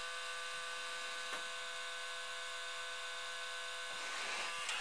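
Bose multi-CD changer's disc-loading motor and gears running on with a steady whine that never stops. The changer does not detect that the disc in the top slot is in place, a fault the repairer puts down to that slot's disc-detection switch.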